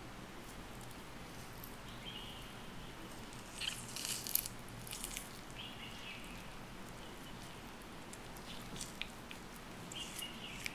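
Peeled orange being pulled apart into segments by hand: soft, wet tearing and crackling of the membranes and pith, in a cluster a few seconds in and again near the end.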